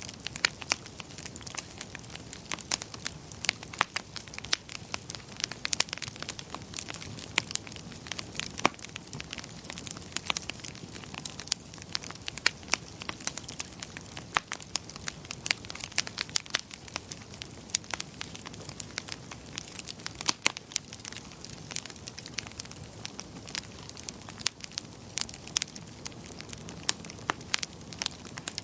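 Wood fire crackling in a fireplace: many irregular sharp pops and snaps over a low steady rush of the flames.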